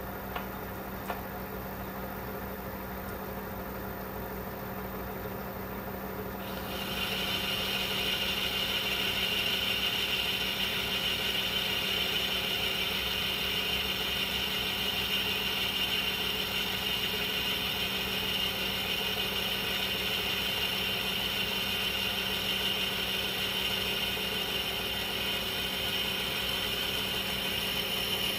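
Metal-turning lathe running steadily while boring a bronze brake-cylinder casting held in a four-jaw chuck, on a light finishing pass at a slowed power feed. About six seconds in, a steady higher-pitched cutting noise joins the lathe's hum and stays, as the boring tool takes its cut.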